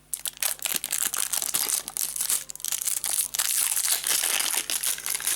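Crinkly plastic wrapping crackling and rustling in quick, irregular bursts as it is handled and pulled off a small phone-shaped makeup kit.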